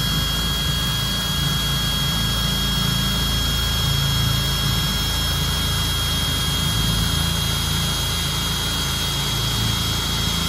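Cordless drill running steadily at speed, its bit boring through a car's plastic interior trim panel, with a constant high whine over the motor noise.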